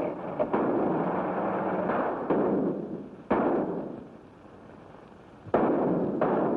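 Pistol and rifle shots exchanged in a gunfight, five or six sharp cracks at irregular intervals, each with a long echoing tail.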